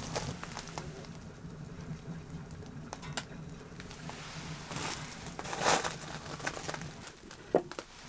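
A low steady hum with a few soft clicks and a brief rustle just before six seconds in; the hum drops away near the end.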